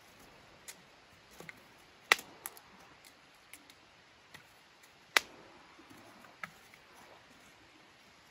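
Irregular sharp clicks and taps, with two louder knocks about two and five seconds in.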